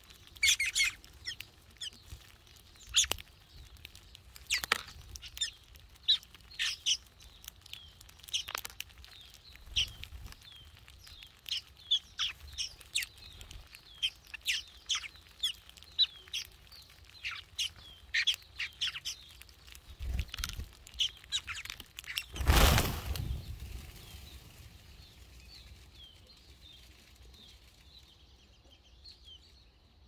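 A feeding flock of red-billed queleas chirps in short, rapid, high calls, with sharp clicks and flutters as birds come and go. About 22 seconds in, a loud rush of wings comes as the flock flushes all at once, and only faint chirps are left after it.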